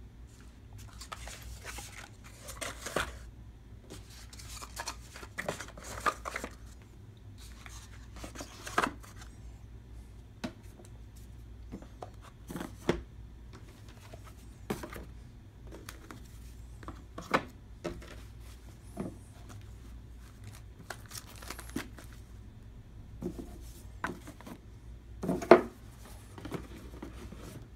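Board game trays, pieces and the cardboard game board being handled and packed into a game box: scattered clicks, knocks and rustles. A louder knock comes near the end as the box lid goes on.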